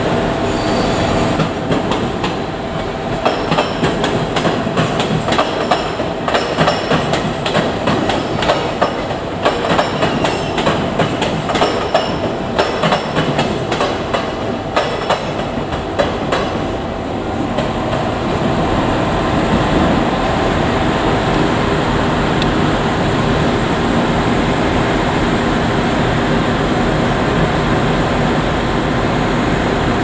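JR Kyushu 817 series electric multiple unit rolling through yard tracks, its wheels clattering over rail joints and points in irregular clicks, then settling into a steady running noise from a little past halfway as it passes close by.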